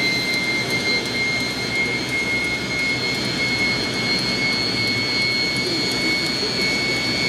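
Kaman K-MAX helicopter running on the ground, rotors turning: a steady high turbine whine over a continuous rush, the whine edging slightly up in pitch partway through.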